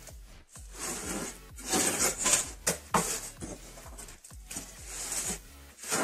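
Irregular rasping strokes of something rubbed hard against a surface, one or two a second.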